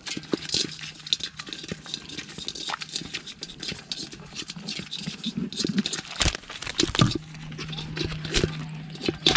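Hand squelching and splashing in a soap-foamed, mud-filled hole: a dense, irregular run of wet clicks and slaps.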